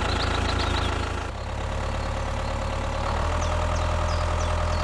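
Tractor engine idling steadily, a low even chug; the sound dips and shifts about a second in.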